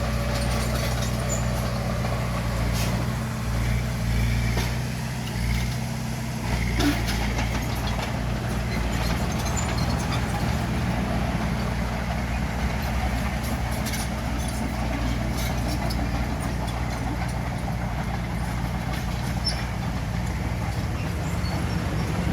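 Bulldozer's diesel engine running steadily under load, with a few short knocks on top.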